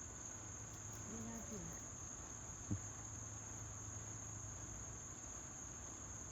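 Steady high-pitched insect chorus, a continuous even trill with no pauses. A single sharp click is heard about two and a half seconds in.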